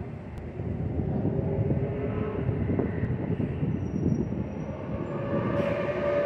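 Steady low rumble of city street noise, with a faint steady hum coming in near the end.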